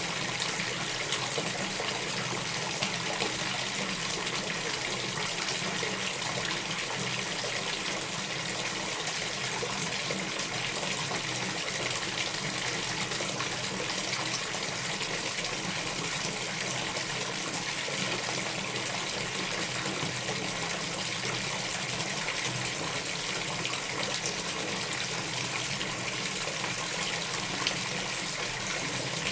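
Water running steadily from a tap into a bathtub as it fills, a constant splashing rush.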